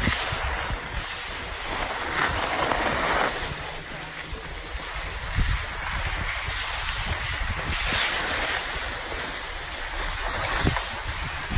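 Skis sliding and scraping over packed snow, with wind rushing on the microphone: a steady noisy rush that swells a couple of times.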